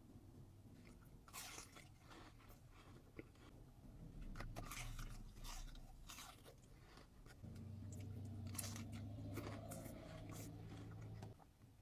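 Close-miked crunching and chewing of crisp food: a scatter of sharp, crisp bites and chews. A low steady hum runs under the chewing in the second half, cutting off near the end.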